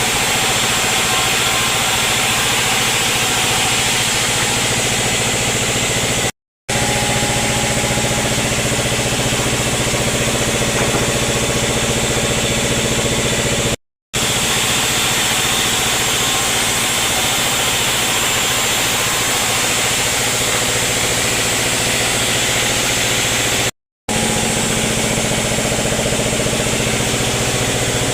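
Sawmill machinery running steadily: an even engine-like hum with a hiss above it and no rise or fall, cutting out completely three times for a split second.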